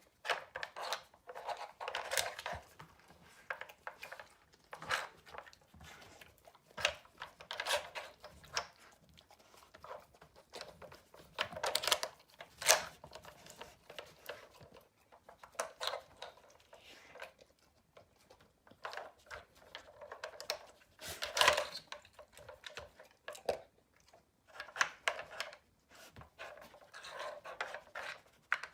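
Hard composite blocks and flaps of a dog treat-slide puzzle clattering, scraping and knocking irregularly as a dog pushes them around, with a few sharper clacks.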